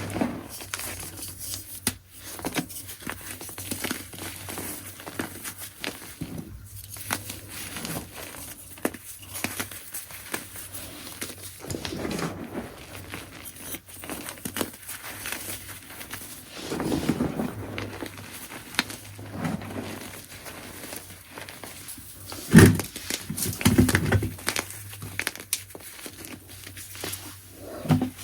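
Soft gym chalk chunks being crushed: dense, irregular crunching and crumbling, with a few louder crunches late on.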